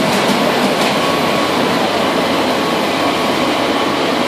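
Ice resurfacing machine running: its engine gives a steady drone with an even hiss over it.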